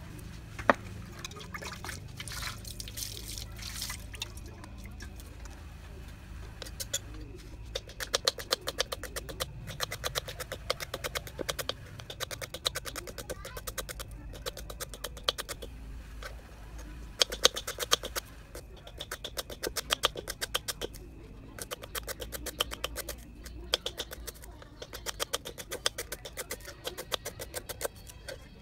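Kitchen knife slicing lemongrass stalks on a round chopping board: one sharp knock near the start, then from about eight seconds in runs of rapid, crisp knocks broken by short pauses.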